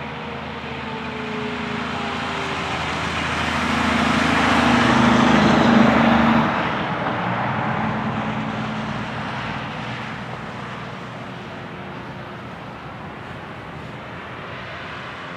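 A vehicle passes, its noise swelling to a peak about five or six seconds in and then fading away. In the first couple of seconds the Federal Signal 2001-SRN siren's tone falls in pitch as it winds down.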